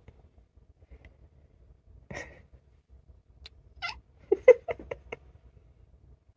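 Ginger cat giving short, soft calls rather than a full meow: a couple of faint sounds, then a quick run of five or six brief chirp-like calls about four and a half seconds in.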